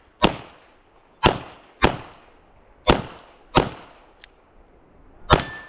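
A revolver fired six times in a string, the shots coming unevenly about half a second to a second apart, with a longer pause before the last.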